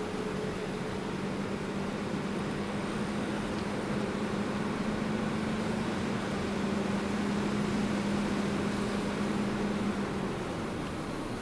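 Road noise inside a moving car: a steady rush of tyre and wind noise with a low engine hum under it, the hum dropping away about ten seconds in.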